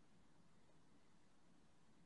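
Near silence: only a faint steady background hiss.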